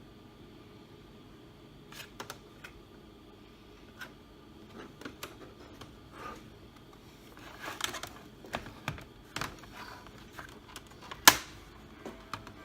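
Irregular clicks and light knocks of a laptop's plastic case and small tools being handled during disassembly, growing busier in the second half, with one loud sharp click about eleven seconds in.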